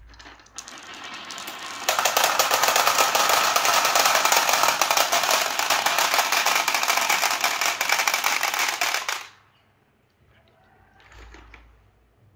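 Dozens of glass marbles rolling and clattering down two scalloped wooden tracks and dropping into a plastic toy dump truck's bed: a dense, rapid clatter that builds over the first two seconds and stops suddenly about nine seconds in.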